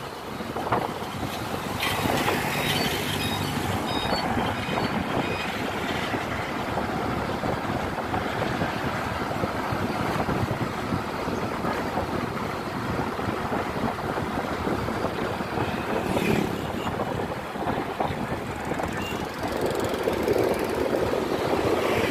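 Motor scooter riding along a road: the engine running steadily under wind and tyre noise.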